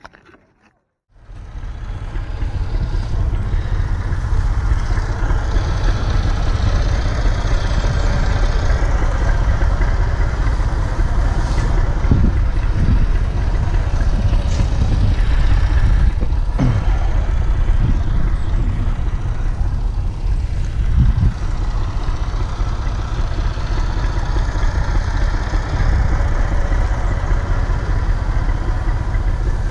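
A tractor engine running steadily, a loud low rumble that starts about a second in, with a few short low thumps over it.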